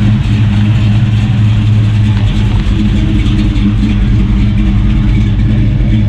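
A car engine idling steadily, a low, even rumble with no revving.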